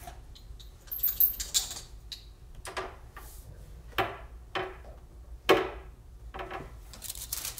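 Handling clatter on a worktable: about half a dozen short, sharp knocks and clicks roughly a second apart, with a brief rustle about a second in.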